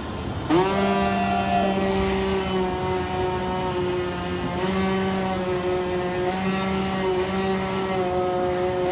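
IECHO BK3 digital flatbed cutting machine cutting an acoustic panel board: over the machine's steady hum, a motor whine starts with a quick rise in pitch about half a second in and then holds steady, shifting slightly in pitch every second or two as the cutting head moves.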